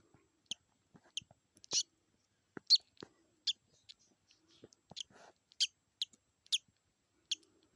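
Budgerigar chirping: a series of short, high peeps, about one a second.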